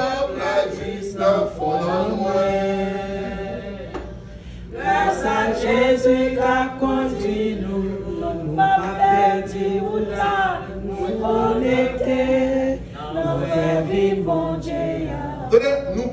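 Church congregation singing a hymn together, the voices holding long notes in phrases, with a brief lull about four seconds in.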